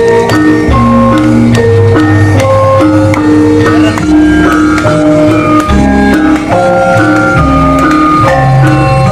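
Loud accompaniment music for a jaranan and reog parade: a melody of held notes stepping up and down over steady drum and bass beats.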